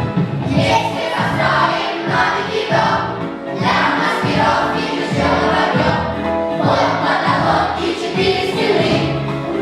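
A group of children singing together in chorus over a musical accompaniment with a steady beat.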